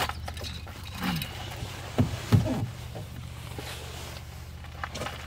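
Clothing and gear being handled and pulled on, with scattered rustles and knocks over a steady low hum. About one second in, and twice more around two seconds in, come loud, short, low sounds that slide down in pitch.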